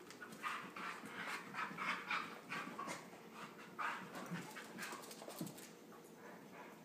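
Dogs panting in quick, rhythmic breaths while play-wrestling, fading out near the end.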